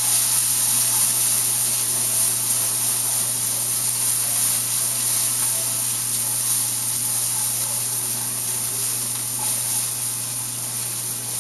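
Peas and corn sautéing in butter in a skillet: a steady sizzle that eases slightly toward the end.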